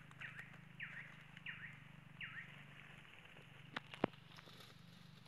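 Four short, high animal calls about half a second to a second apart, each sweeping down in pitch, over a steady low hum; near the end come two sharp clicks, the second the loudest sound.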